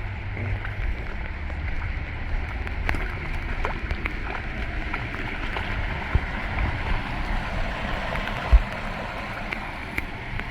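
Torrential rain pouring steadily, with water running and gurgling, and a low rumble beneath. A single sharp thump about eight and a half seconds in.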